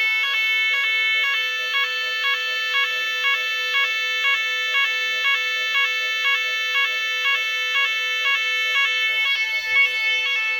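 Electronic evacuation sirens of a Nugelec type 4 fire alarm sounding the general evacuation signal: a loud, continuous electronic tone with a pulse repeating about twice a second.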